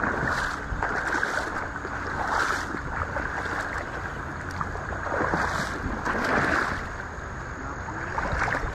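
River water splashing and sloshing in irregular surges around a man wading and hauling in a fishing net, over a steady low rumble of wind on the microphone.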